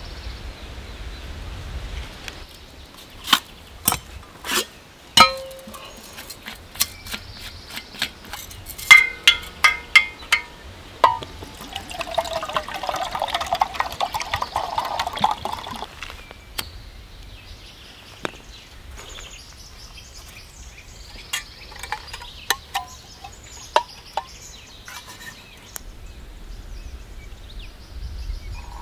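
Water poured from a stainless steel canteen into a steel cup for about four seconds near the middle, the pitch of the pour rising as the cup fills. Before it comes a series of sharp metal clinks and taps from handling the cup and stove.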